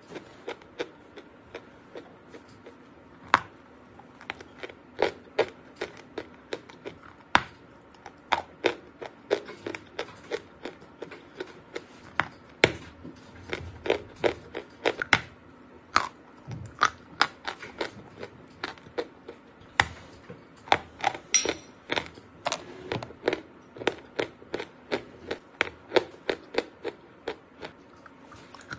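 Dry chalk bitten and chewed close to the microphone: irregular sharp crunches, some single loud cracks and stretches of quick, dense crunching.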